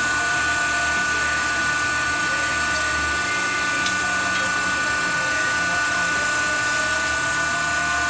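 WW2-era manual lathe running steadily with a high whine, taking a chamfer cut on a cylinder head.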